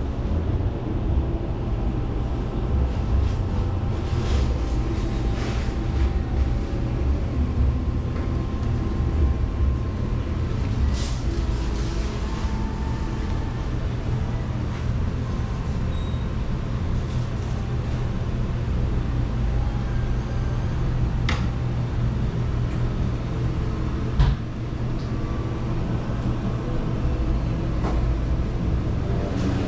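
Steady low machine rumble and hum, with a few sharp clicks and one louder knock late on.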